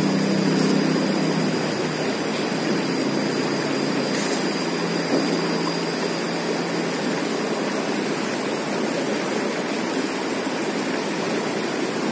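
Shallow river running over rocks: a steady rush of water. A motor vehicle's engine fades out over the first couple of seconds.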